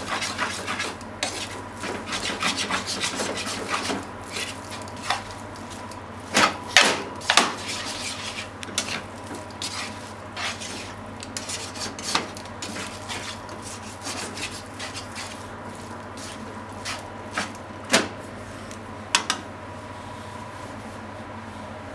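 Spaghetti being tossed and stirred in a frying pan with silicone-tipped tongs: rubbing and scraping with sharp knocks of the tongs against the pan. The strokes come thick at first, thin out, and stop about three seconds before the end.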